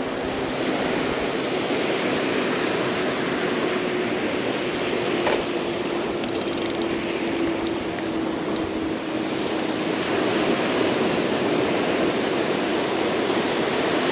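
Steady wash of ocean surf on a rocky shoreline, with a single sharp click about five seconds in.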